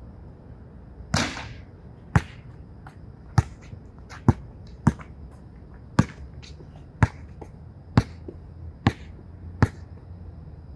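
A basketball banks off the backboard about a second in with a smack and a short ringing rattle, then bounces on the hard outdoor court in nine sharp knocks, roughly once a second.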